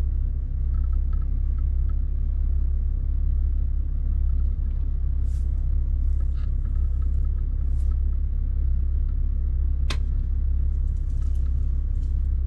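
Steady low rumble throughout, with a single sharp click about ten seconds in and a few faint brief hisses.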